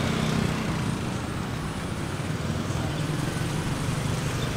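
Steady rumble of road traffic mixed with general outdoor street noise.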